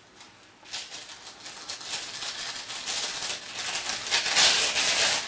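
Tissue paper rustling and crinkling as hands unfold it inside a gift box. It starts about a second in and builds, loudest near the end.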